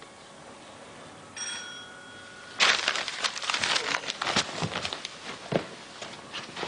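A single steady electronic tone lasting about a second, then a few seconds of close crackling and rustling.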